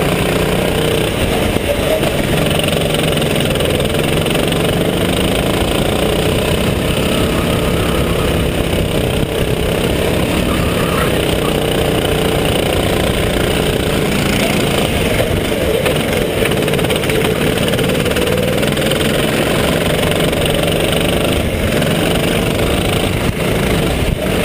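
Go-kart engine heard onboard at full running, its note rising and falling with the throttle through the corners.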